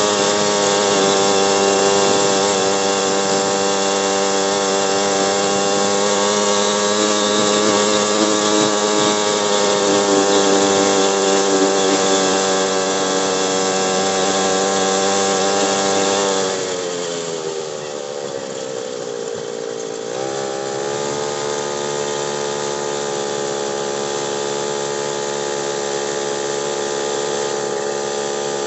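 Motorcycle engine running at steady revs under way, with wind rush. A little past halfway the revs fall away as the throttle is eased, then climb back and hold steady again.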